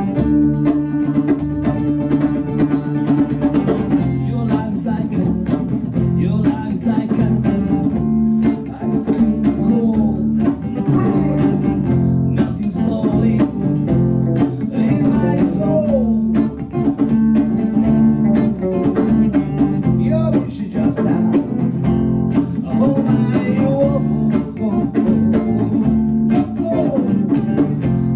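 A small live band playing: guitar chords over a drum kit, with a steady beat.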